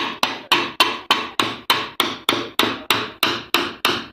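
Steady hammer blows, about three a second, on a piece of wood held against an electric water pump motor's rotor shaft, knocking the rotor out of the motor housing.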